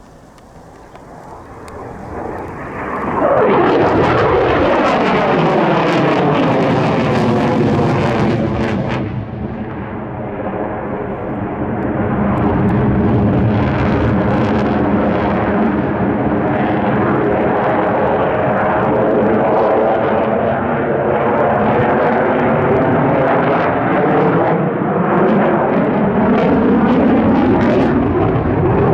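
Fixed-wing aircraft engine noise from a low pass, swelling in over the first three seconds and staying loud, with a sweeping, shifting pitch as the aircraft moves past.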